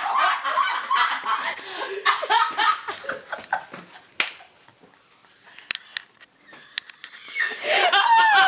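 A group of people laughing and snickering, with a single sharp knock about four seconds in, then a quieter stretch before loud laughter breaks out again near the end.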